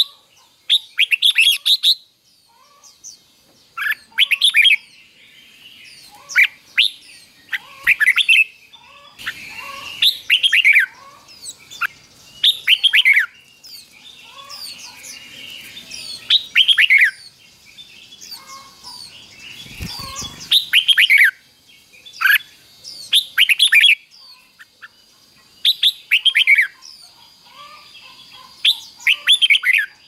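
Red-whiskered bulbul singing: short runs of quick, falling whistled notes, one phrase every two to three seconds, several sung twice in a row in the doubled style that keepers teach to young birds. Softer calls chatter between the phrases, and a dull low thump comes about two-thirds of the way through.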